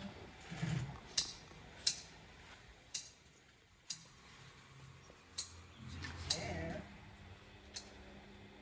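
A series of sharp, irregular clicks, roughly a second apart, with a brief low murmur around six seconds in.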